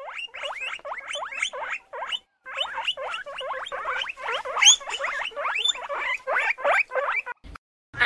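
Guinea pigs wheeking: a fast run of short, high rising squeals, about four or five a second, with a brief pause about two seconds in.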